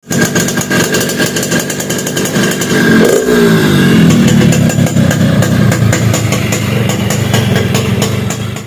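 Yamaha RX-King's single-cylinder two-stroke engine revving through its exhaust, with rapid popping all through. About three seconds in the revs fall away from high to a lower, uneven run.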